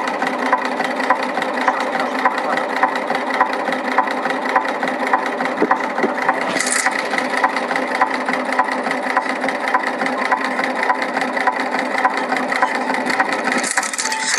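Shoe-making machine running steadily, a constant hum with regular ticking about two to three times a second and a brief hiss near the middle.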